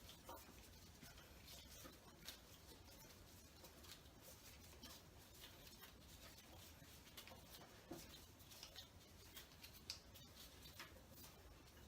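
Near silence: room tone with faint, scattered light clicks and ticks.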